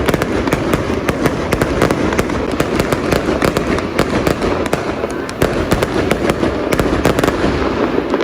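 Aerial fireworks going off in quick succession: a dense, irregular run of sharp crackles and pops over a continuous noisy bed.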